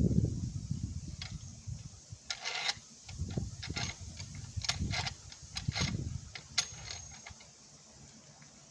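A low rumble fading in the first second or two, then a string of sharp clicks and light knocks, of hard parts being handled and set in place.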